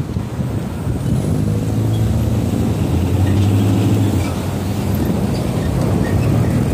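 Car and pickup engines running in slow street traffic. A steady, low engine hum swells for a few seconds in the middle.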